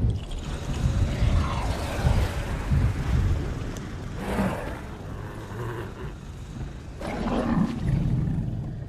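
Film-sound dragon roars and growls: deep rumbling with three louder calls that bend in pitch, about a second in, past the middle, and near the end.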